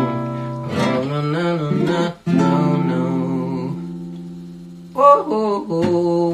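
Acoustic guitar playing chords: strums, then a chord left to ring and slowly fade for a couple of seconds before strumming starts again near the end.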